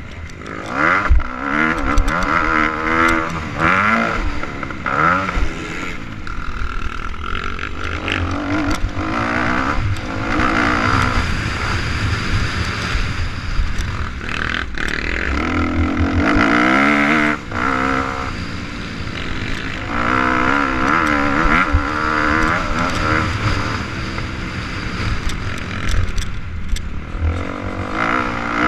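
Motocross dirt bike engine heard close up from the rider's helmet camera, revving hard and shifting through the gears, its pitch climbing and then dropping back at each shift. The throttle is chopped briefly about 17 seconds in, and there are occasional knocks from the bike over the rough track.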